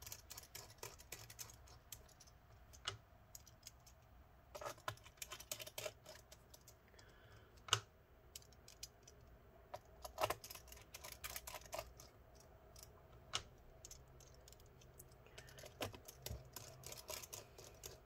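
Faint, irregular clicks and taps of a small T5 screwdriver driving the bottom-cover screws back into a laptop, with the tool and fingers knocking lightly on the case; one sharper click about eight seconds in.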